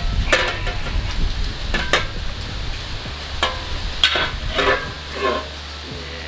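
Thin sheet-metal fender blank handled and flexed by hand: a string of irregular clicks, scrapes and short metallic wobbles as it is flipped and bent around the wheel.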